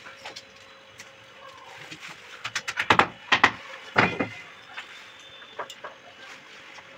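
A quick run of sharp clicks and knocks, about two and a half to four seconds in, over a faint steady hum.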